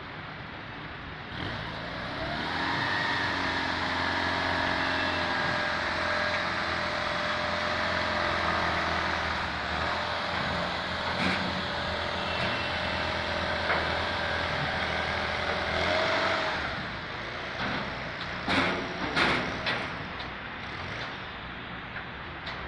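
Sports car's engine held at raised revs as the car creeps up a metal loading ramp into a car-carrier truck. Its pitch rises at first and drops about sixteen seconds in as the throttle is released. Several sharp knocks follow near the end and are the loudest sounds.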